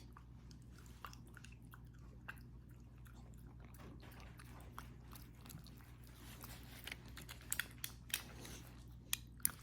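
Close chewing and biting of crunchy food, with scattered crunches that come more often and more sharply in the last few seconds.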